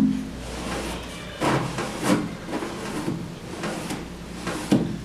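Cloth rag rubbing over a wooden MDF box to wipe off excess bitumen, with a few short, louder scuffs as the box is handled on the table.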